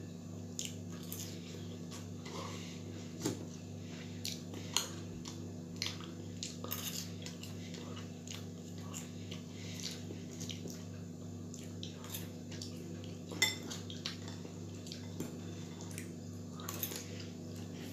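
Metal fork clinking and scraping against a bowl of french fries while eating, in irregular sharp clicks, over a steady low hum.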